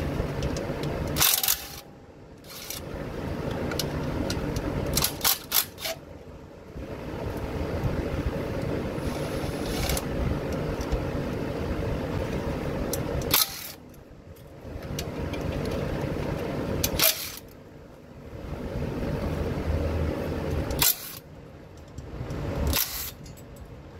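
Power ratchet with a 10 mm socket on an extension, spinning out oil pan bolts in runs of a few seconds with short pauses between them. Several runs end in a sharp click.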